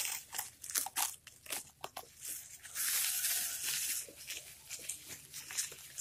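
Plastic bubble wrap being unwrapped and crumpled by hand: a run of quick crinkles and crackles, with one longer continuous rustle lasting about a second near the middle.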